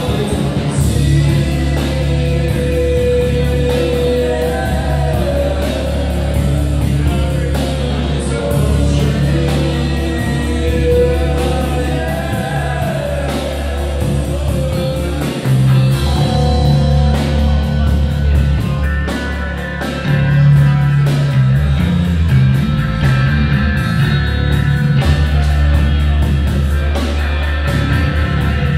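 Live rock band playing loudly: electric guitar and drums with a singer.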